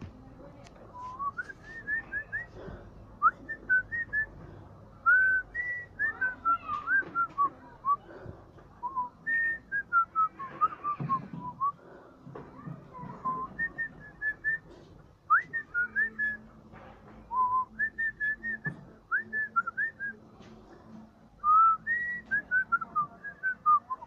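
Cockatiel whistling: phrases of short rising and falling notes, separated by brief pauses.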